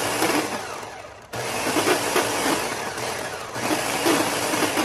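Small personal blender grinding a thick paste of spices, cashews and almonds. The motor dies away about a second in, starts again suddenly and keeps running.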